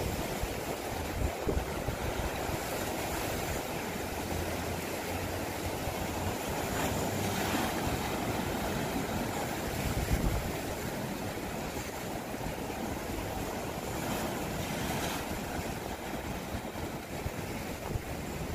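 Sea waves washing and breaking over rocks along the shore, a steady rushing with no single loud break, and a low rumble underneath.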